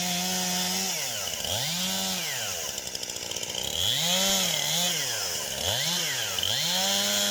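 Stihl MS291 two-stroke chainsaw engine being revved repeatedly: the pitch climbs to a high steady whine, holds briefly, then drops back toward idle, about five times in a row.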